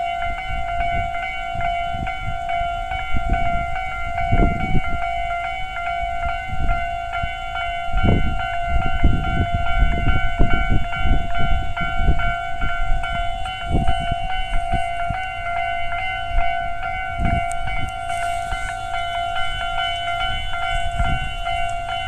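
Japanese level-crossing warning alarm ringing steadily, the standard electronic clanging bell tone, with the alarms on the two sides ringing at different speeds, one faster than the other.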